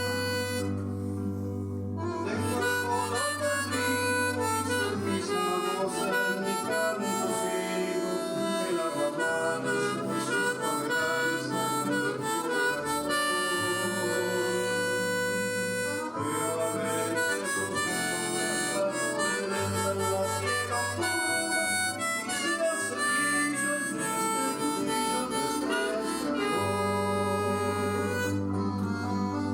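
Diatonic harmonica in C played in second position (cross harp) in the key of G, a melody of held and moving notes, over an accompaniment with sustained bass notes that change every few seconds.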